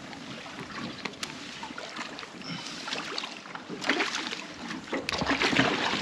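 Sea water slapping and sloshing against the hull of a small aluminium boat, with a few louder slaps in the second half.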